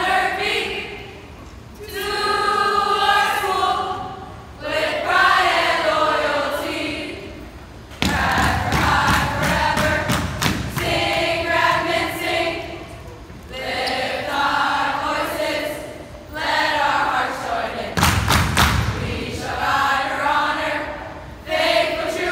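A group of young voices singing together in unison, in phrases of about two seconds with short breaks between them. Low thuds join the singing in the second half.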